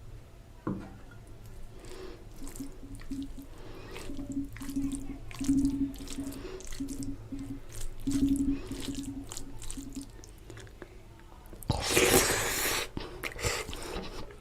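Close-miked wet eating sounds of mutton curry and rice: squishing, smacking and chewing in short, irregular bursts, with a louder, noisy burst lasting about a second near the end.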